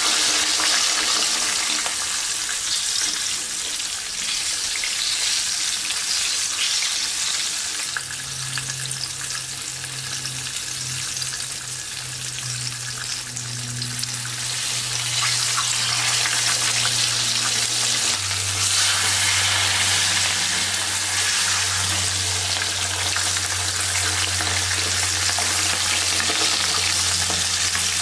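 Whole sea bream frying in hot oil in a pan, a steady sizzle and bubbling.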